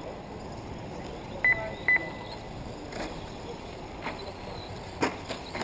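Two short, loud, high electronic beeps about half a second apart, typical of a lap-counting system registering RC cars crossing the line. After them come a few sharp knocks and clicks from the cars on the track, over a steady outdoor hiss.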